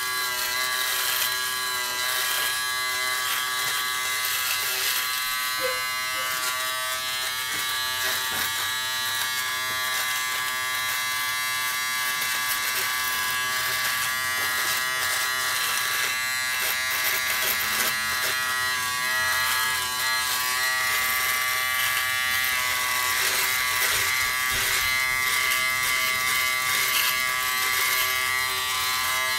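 Remington Wetech PF7580 foil electric shaver, stubble guard fitted, running continuously with a steady buzzing hum as it is worked over beard stubble on the face and jaw.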